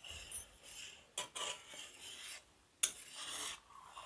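Metal spatula scraping and stirring through milk boiled down to about half in a metal kadhai, in repeated strokes, with two sharper knocks against the pan about a second and about three seconds in.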